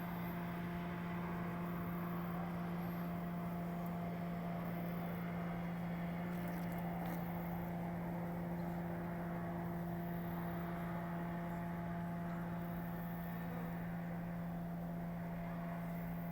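Steady machine hum: one constant low tone with fainter higher overtones over an even background noise, unchanging in pitch and level.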